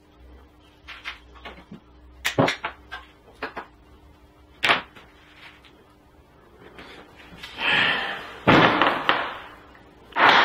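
Sharp clicks and knocks from fitting connectors onto coax cable ends with a hand tool. Near the end come a couple of longer, louder rubbing and scraping noises of the cable and tools being handled.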